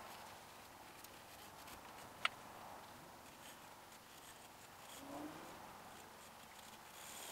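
Faint scratching of a graphite pencil hatching on drawing paper, with one sharp click about two seconds in.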